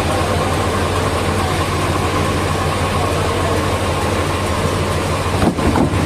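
Sawmill machinery engine running steadily at idle, with a brief louder sound near the end.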